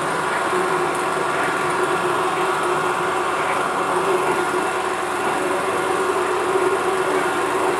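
16 mm film projector running: a steady mechanical whir with a constant hum.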